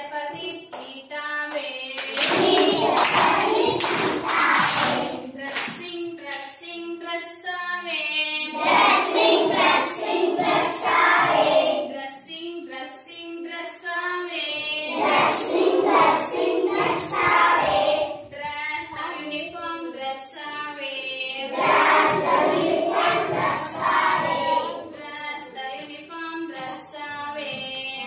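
Group of schoolchildren singing an action song with a woman leading, in short repeated phrases with brief gaps; some phrases sound like a single clear voice and others like the whole group together.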